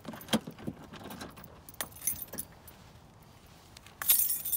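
Scattered light metallic clicks and jingling as a bluetick hound's collar and leash are handled, with a louder, longer jangling rustle near the end.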